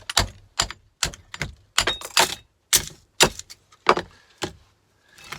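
Repeated hammer blows knocking the steel core laminations out of a small transformer's copper winding, sharp metal-on-metal strikes coming irregularly about two to three a second.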